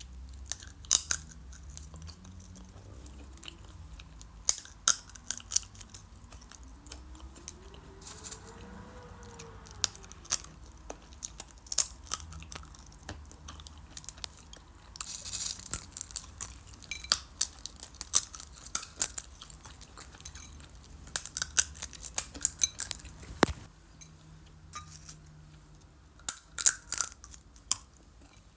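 Sunflower seeds being cracked open between the teeth and eaten: sharp cracks coming singly and in irregular clusters.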